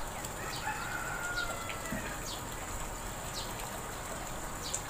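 A rooster crowing once, a long drawn-out call that falls slightly in pitch, with short high bird chirps scattered through.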